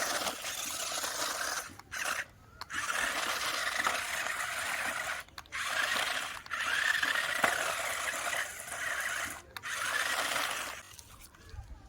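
Small electric motors and gearboxes of a remote-control toy vehicle whirring in stop-start runs of one to three seconds, about six in all, cutting off near the end, with the pitch rising and falling within each run.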